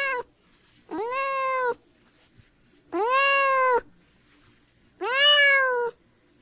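Cat meowing: three drawn-out meows about two seconds apart, each rising and then falling in pitch.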